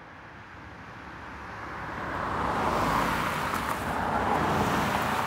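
A car driving past on the road, mostly tyre noise, growing louder over the first three seconds and staying loud until near the end.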